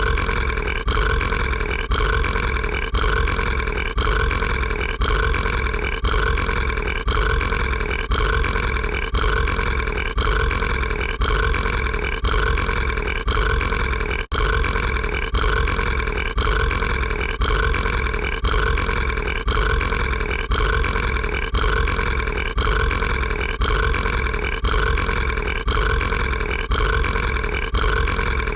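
Cartoon monster's burp, drawn out into one long, continuous belch that pulses in an even, repeating rhythm. It has a steady pitch and breaks off for an instant about halfway through before carrying on.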